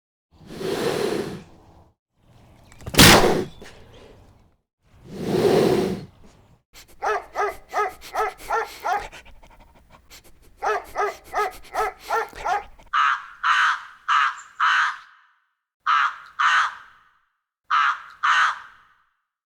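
A series of animal calls: a few noisy blasts, then two runs of rapid pulsed calls, and near the end short harsh calls in groups of four, two and two.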